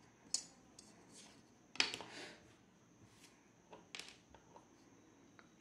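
A few light taps and clicks of a clear plastic ruler being handled and lifted off cloth, the loudest about two seconds in.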